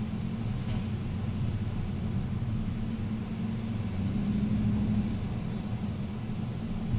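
Interior cabin noise of a vehicle driving on beach sand: a steady low rumble of engine and running gear, swelling slightly about four seconds in.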